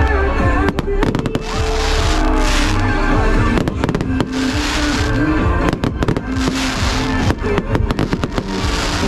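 Fireworks bursting over loud music: clusters of rapid sharp cracks around a second in, near four seconds and from about six to eight seconds, with a few rushing hisses between them.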